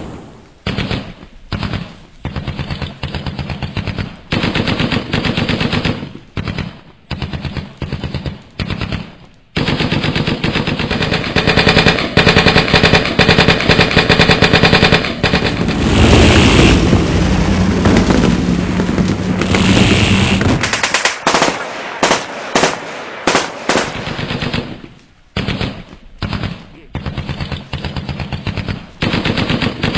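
Airsoft rifles firing on full auto: a fast, even rattle in bursts of a few seconds, with one long run of about ten seconds in the middle.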